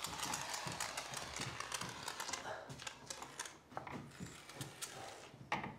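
Expanding foam gun dispensing foam into the gap around a door frame: a soft hiss with rapid, irregular clicks and crackles.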